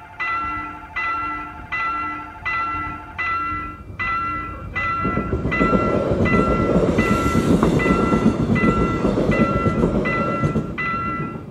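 Railroad crossing warning bell ringing about twice a second, as a Korail Nuriro passenger train passes over the crossing from about five seconds in, its wheels rumbling loudly on the rails for about six seconds before the bell is left ringing alone.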